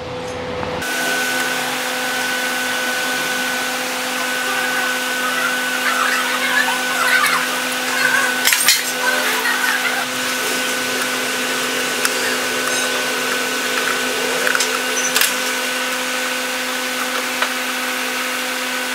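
Steady machine hum with a clear tone, like a motor or fan running, starting abruptly about a second in. Over it come a few short clicks and taps of a hand screwdriver on the metal blower mount.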